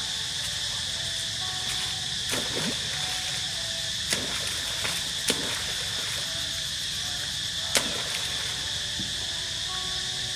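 Steady high-pitched drone of a forest insect chorus, with a few sharp clicks or knocks scattered through it, the loudest near eight seconds in.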